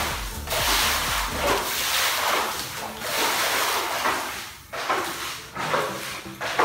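Water swishing and splashing as bare hands sweep it across a wet concrete floor, in repeated strokes about one a second.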